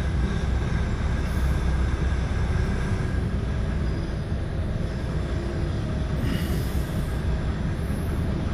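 A lorry's diesel engine running low and steady, heard from inside the cab as the truck reverses slowly. A short hiss comes about six seconds in.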